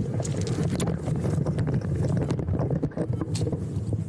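Wind rumbling on the camera microphone, with scattered clicks and knocks from gear being handled on the gravel.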